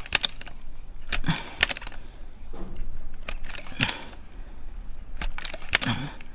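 Multi-pump bullpup air rifle being pumped. The pump lever is worked about every two seconds, and each stroke clacks and rasps as air is forced into the rifle.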